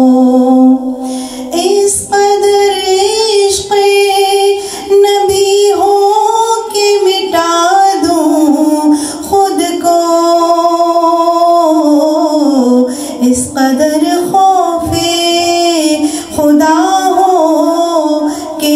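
A woman singing a naat in long, ornamented melodic lines, with notes drawn out and sliding between pitches.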